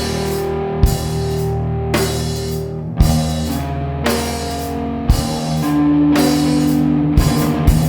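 Grunge rock music: held guitar and bass chords over a drum kit, with heavy drum hits roughly every two seconds.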